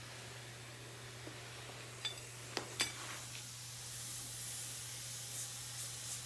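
Compressed air hissing as an air hose inflates a motorcycle front tire whose bead has not yet seated, the air leaking out past the bead. A few light metallic clicks come about two to three seconds in; the hiss grows louder and then cuts off suddenly near the end.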